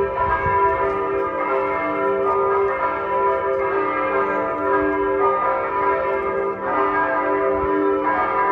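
Church bells ringing continuously, several notes struck in turn in a repeating pattern, each note ringing on over the others.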